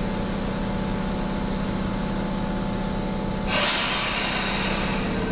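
Inside a stopped Tobu 10000 series electric train car: a steady electrical hum, then about three and a half seconds in, a sudden loud hiss of compressed air being let out, which slowly eases off.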